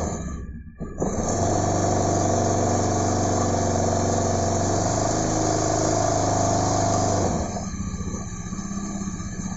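Automatic scooter engine held at a raised, steady speed for several seconds after a brief dip near the start. It drops back to a quieter, steady idle about seven seconds in.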